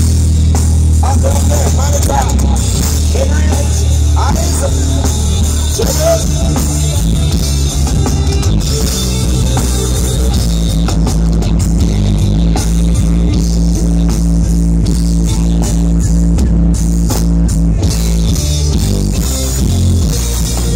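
Live band playing through stage PA loudspeakers: drum kit, heavy bass, keyboards and guitar, heard from within the audience.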